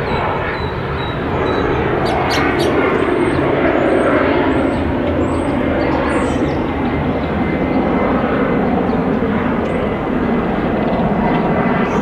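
Loud, steady rumbling noise that swells slightly in the first couple of seconds, with a few faint high chirps from small birds over it.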